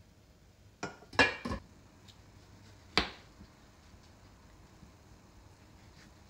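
Glass pot lids with metal rims being set down onto two white pots: a quick cluster of three or four clinks about a second in, then one more sharp knock near three seconds.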